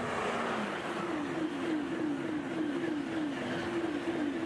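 Eurostar Class 373 high-speed electric train passing at speed and running away. A steady rush with a tone that drops in pitch about half a second in, then a fast, even rhythm of about three beats a second.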